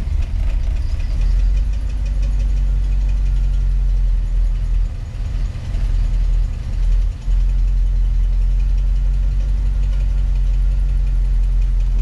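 International Scout engine idling steadily at operating temperature, with low oil pressure at idle. The owner suspects failed camshaft bearings and rocker assemblies running dry.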